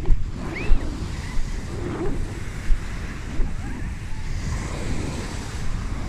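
Small waves breaking and washing up a sandy shore, with wind buffeting the microphone in gusts.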